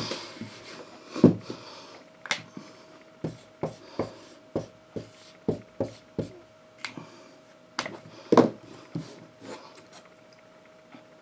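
Irregular light taps and knocks, about twenty of them at uneven intervals, some sharper than others, over a faint steady tone.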